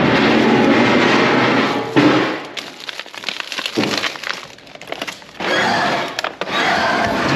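Plastic food packaging crinkling and crackling as it is handled and shifted among other packs in a plastic wheelie bin. It is loudest in the first couple of seconds and again from about two-thirds of the way through, with scattered crackles in between.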